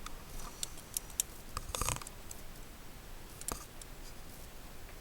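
Scattered light clicks and taps of handling, with a short scraping rustle just before two seconds in and a sharper click about three and a half seconds in.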